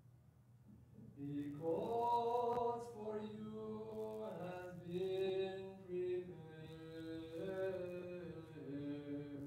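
A priest chanting a Greek Orthodox liturgical hymn solo, in long held notes that step up and down; the chant starts about a second in.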